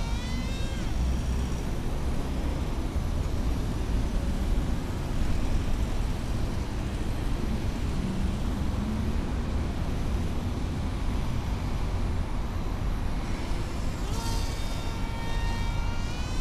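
Small electric RC flying wing's motor whine passing close by, its pitch dropping as it goes past, just after the start and again near the end. In between it fades and a low rumble of wind on the microphone dominates.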